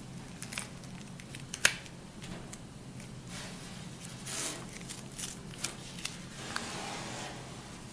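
Scattered light clicks and rustles from hands handling a card against a painted car fender, with one sharp click about a second and a half in. A steady low hum runs underneath.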